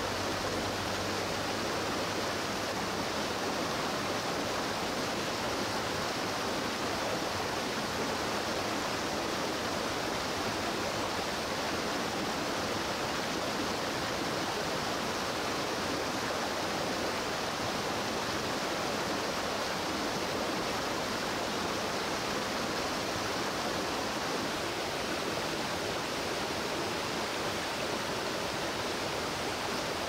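Waterfall: steady, unbroken rushing of falling water.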